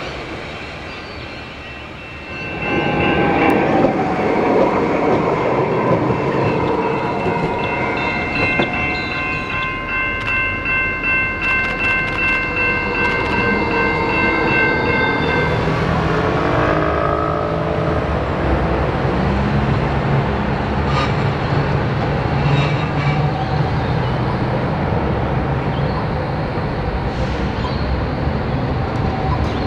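Modern low-floor electric trams (Alstom Citadis and Bombardier Flexity) running past on the rails: the running noise swells suddenly a couple of seconds in. A steady high whine holds for several seconds, and then a whine glides up and down as a tram moves off. Steady tram running noise follows.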